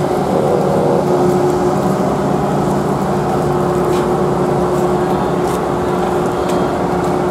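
Steady machinery drone of a docked ferry's engines running, a constant low hum with a held tone over it.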